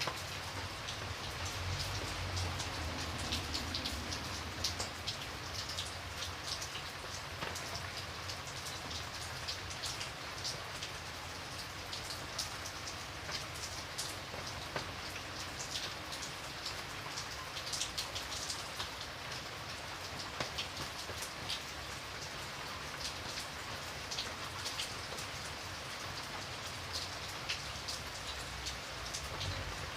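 Steady rain falling on a surface, with many separate drops pattering throughout.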